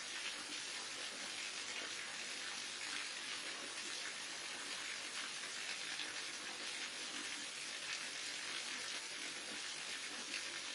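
Waterfall: a steady, even rush of falling water, with no single splashes standing out.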